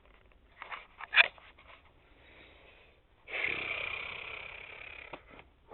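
A man breathing out in one long, steady exhale of about two seconds that slowly fades, after a few short faint sounds about a second in.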